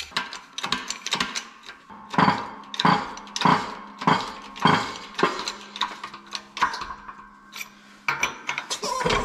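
Metal parts clinking and tapping as a transfer case shaft, bearing and nut are set up in a hydraulic shop press: a run of sharp clinks, about one every 0.6 s for a few seconds in the middle, among lighter ticks.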